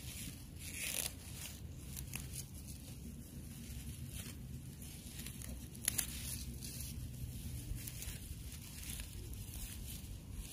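Leaves and grass stems rustling, tearing and snapping as plantain leaves are picked by hand and cut with a small knife, with sharper snaps about one second and six seconds in.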